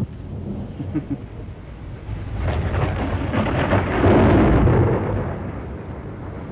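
Low rolling rumble like thunder, swelling to its loudest about four seconds in and then easing off.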